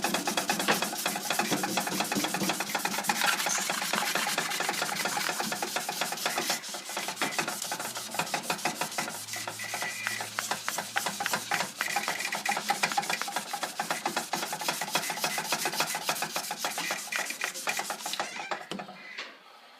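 Fast back-and-forth scrubbing of a pinball machine's painted playfield with a Magic Eraser and rubbing alcohol, stopping near the end.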